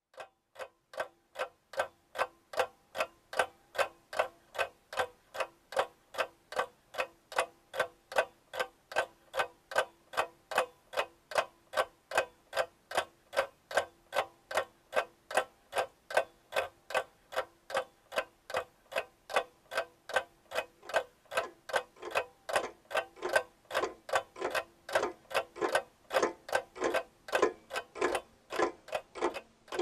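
Even, mechanical ticking, about three ticks a second. A little past two-thirds of the way in, a second, off-beat run of ticks joins and the ticking grows busier.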